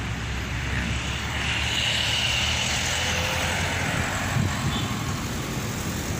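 Road traffic: cars driving past, their engine and tyre noise swelling about a second in and easing off again after a few seconds.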